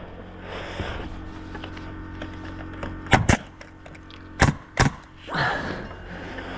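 Timber wall framing being nailed: four sharp strikes in two quick pairs, about three and four and a half seconds in, with a rustling scrape near the end.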